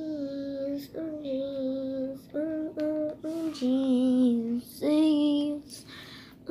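A young girl singing wordless, drawn-out notes: about six sustained vowels in a row, some held about a second, with short breaths between.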